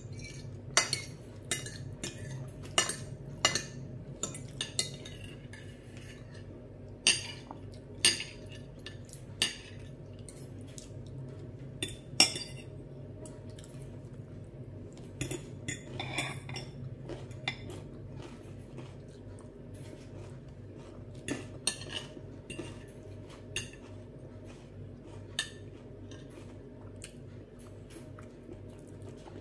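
Steel knife and fork clinking and scraping against a glass plate: irregular sharp clinks, frequent in the first half and sparser later on. A steady low hum runs underneath.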